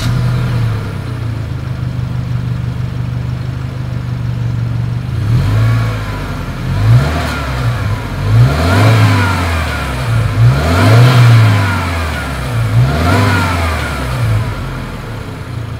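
2020 Subaru Outback XT's turbocharged 2.4-litre flat-four, heard at the rear exhaust outlets. It idles steadily, then from about five seconds in is revved in five or six short blips that rise and fall in pitch, and settles back to idle near the end.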